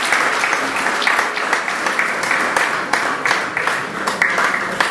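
A crowd applauding, many people clapping steadily together.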